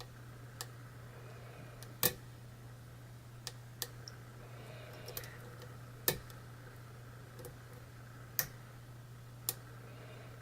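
Lock pick and tension wrench clicking against the pins of a challenge lock during picking: sharp single clicks at irregular intervals, with a low steady hum underneath.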